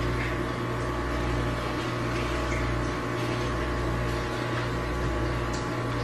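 Steady machine hum from a running motor or appliance, its lowest notes pulsing about every 1.3 seconds. A few faint soft ticks of the knife working through a rockfish's head sit under it.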